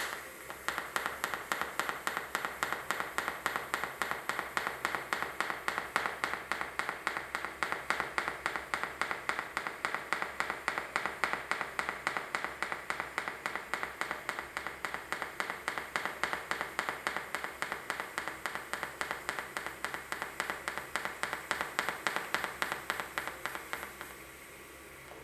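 Pulsed TIG welding arc on stainless steel pipe, crackling in a steady rhythm of about four pulses a second. It cuts off about a second before the end.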